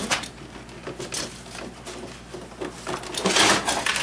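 Dashboard parts being handled: a few short knocks, then a longer scraping rustle about three seconds in.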